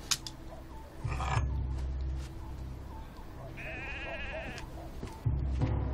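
A lamb bleating once, a quavering cry about a second long, midway through. A sharp click comes right at the start, and a low rumble swells about a second in and again near the end.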